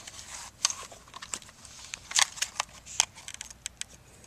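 Scattered small clicks and rustles of a plastic camcorder being handled and turned over in the hands.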